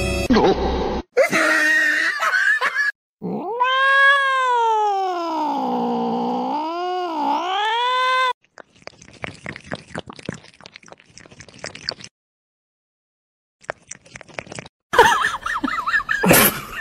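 A cat yowling: one long drawn-out call of about five seconds that rises, falls and rises again in pitch, wavering near its end. Shorter scattered clicks and noises follow.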